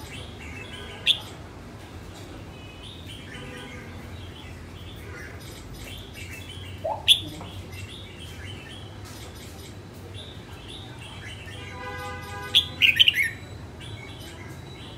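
Red-whiskered bulbul singing: short, sharp, high chirps about a second in and again around seven seconds, then a quick run of them near the end, with softer notes in between.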